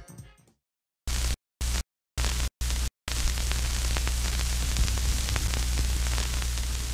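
The tail of the closing music fades out. Then video static, a hiss with a low hum, cuts in and out in four short bursts. From about three seconds in it runs steadily with scattered crackles.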